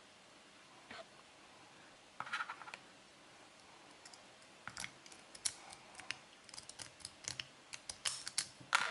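A hairpin scraping and clicking inside the keyway of an HM Müllner 400-40 padlock as it is picked: a few light clicks early on, then quick runs of sharp metal clicks and scratches through the second half, loudest near the end.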